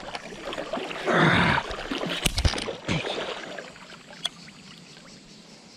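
A large wels catfish thrashing at the surface on the line, water splashing and sloshing in bursts, loudest about a second in. Two sharp knocks come near the middle, and the sound fades toward the end.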